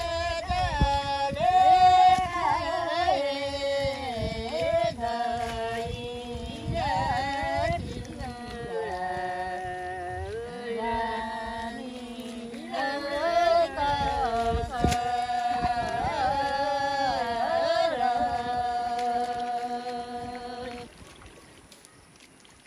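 Women singing a slow song in long, held notes that slide from pitch to pitch, stopping about 21 seconds in.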